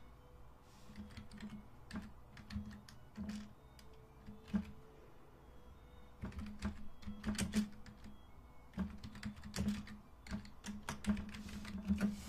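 Typing on a computer keyboard: quick runs of key clicks in several bursts, with short pauses between them.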